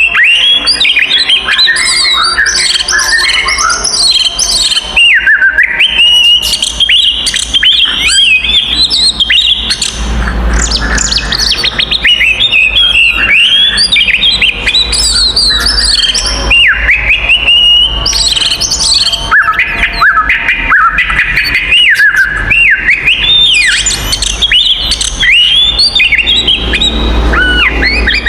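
Oriental magpie-robins (kacer) singing loudly and without pause: a dense run of varied whistles, chirps and fast sweeping notes. It is the excited fighting song of birds in full voice.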